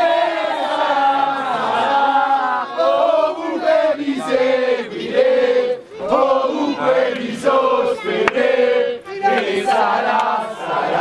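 Football supporters chanting and singing together in the stands, a loud group of mostly male voices in long held phrases with short breaks.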